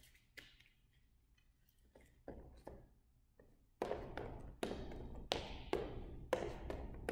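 Sneaker footsteps on a hard gym floor as a person shuffles sideways against a resistance band looped around the legs. The steps are light taps at first, then from about four seconds in become louder, quick stomps, two to three a second, each with a short echo.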